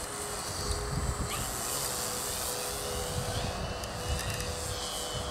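Electric RC aerobatic plane passing in flight: the brushless motor and 15x8 propeller give a steady whine that steps up a little in pitch about a second and a half in, over a low rumble.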